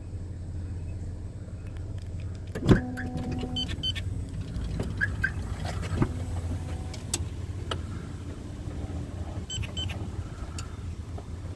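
Chrysler Grand Voyager minivan sitting with a steady low hum, as of the engine idling. A loud sharp clunk comes about three seconds in, and lighter clicks and knocks from the van's door and seat hardware follow.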